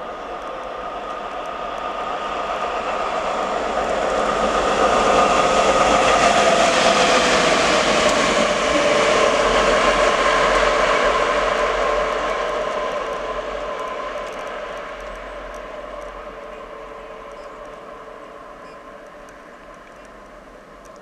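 ET42 twin-section electric locomotive running light, passing at speed: wheel-on-rail noise builds, is loudest for several seconds, then fades away. Steady whining tones ride on top and dip slightly in pitch as it goes by.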